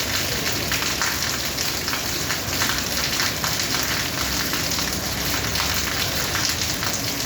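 Rain falling steadily on a rooftop: an even hiss made of many separate drop hits, with no pause or change.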